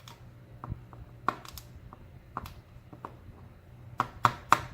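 Small metal lock pins and parts clicking and tapping as they are handled during disassembly: a few scattered light clicks, then a quick run of louder clicks near the end.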